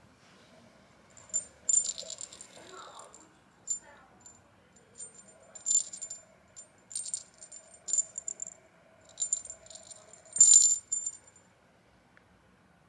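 Small bell inside a woven rubber dog-toy ball jingling as the ball is shaken, in a series of short rattling bursts with brief gaps, the loudest about ten seconds in.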